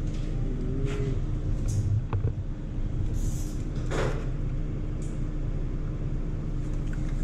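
Steady low machine hum, with a few light clicks and brief rustles as a hand handles the plastic ink tubes and fittings around the printhead's ink damper; the sharpest click comes about four seconds in.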